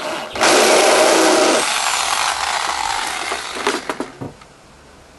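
Electric drill boring through the van's sheet-steel body panel: a loud, harsh cutting noise with the motor's steady whine under it for about the first second, going on until about four seconds in and ending with a few clicks as it stops.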